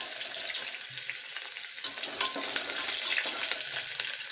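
Sliced onions sizzling in hot oil in an aluminium pressure cooker, with a steady frying hiss and scattered crackles. A metal spatula stirs them, scraping and tapping the pot.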